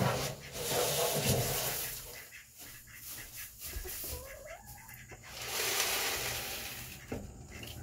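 Rustling and scraping as chicken feed is handled, with one short rising-then-falling chicken call about four and a half seconds in.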